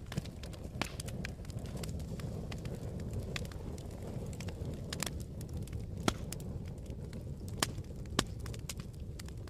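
Log fire burning in a fireplace: a steady low rumble of flames with scattered sharp crackles and pops, the loudest about six and eight seconds in.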